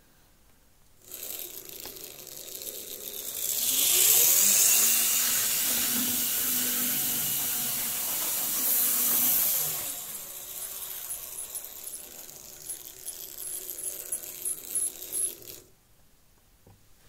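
Lima N gauge Class 55 Deltic model locomotive chassis running along the track with its shell off: the small electric motor and gears whirr, rising in pitch as it picks up speed about three seconds in, then fade out about fifteen seconds in as it stops. This is its test run after a strip-down and clean.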